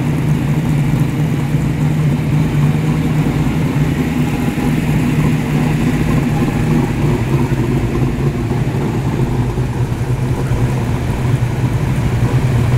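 Classic muscle cars, led by a Ford Falcon XW GT, idling and creeping past in a slow queue: a steady, low engine burble with no revving.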